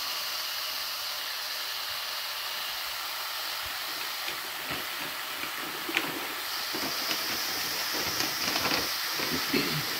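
Ground beef patties frying in a dry nonstick pan: a steady sizzling hiss, with light crackles and pops starting about halfway through and growing more frequent.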